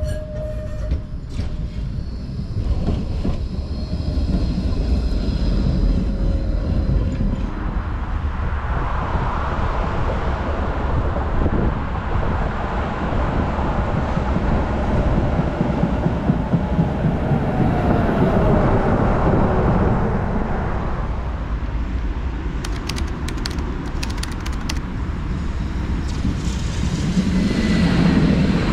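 Trams running on street track: a steady rumble of wheels on rail, with a faint falling squeal about midway and a quick run of sharp clicks later. Near the end a tram passes close by and is loudest.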